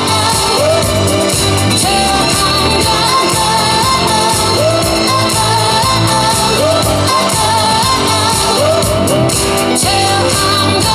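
Loud recorded pop song played over a PA, with a steady beat and a lead melody that slides and bends between notes.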